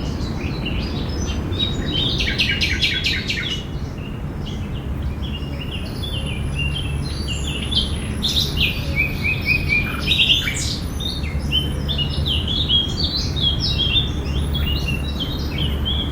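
Park ambience of several songbirds chirping and twittering in quick overlapping calls, with a fast trill about two to four seconds in, over a steady low rumble.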